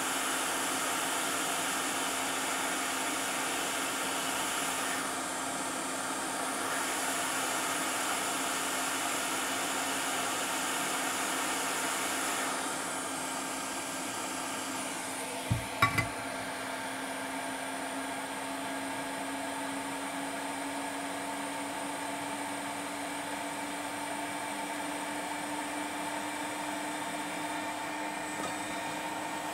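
Hot air rework station blowing steadily, with a steady hum under the rush of air. Its sound shifts a few times, and two short clicks come about halfway through.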